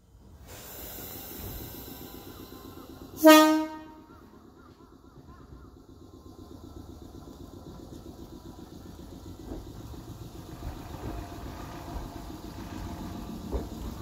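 Choshi Electric Railway train sounding one short, loud horn blast about three seconds in, over the steady running rumble of the train moving along the line. The rumble grows louder toward the end, with a couple of sharp knocks.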